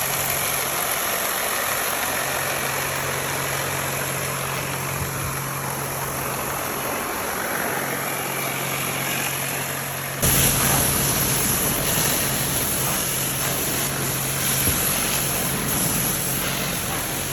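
TVS Ntorq 125 scooter's single-cylinder engine idling steadily with an even hum. About ten seconds in it cuts abruptly to a second, louder take of the same idle.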